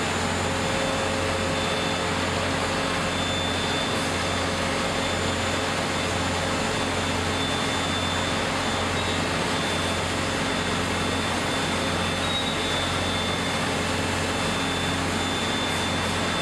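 Steady, even machinery noise with a constant low hum from a spring-coiling machine winding a red-hot steel bar into a coil spring; no separate knocks or clanks.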